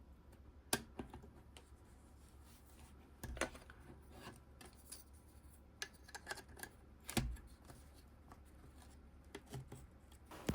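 A few light clicks and scrapes, scattered over several seconds, from small plastic parts and hand tools being handled.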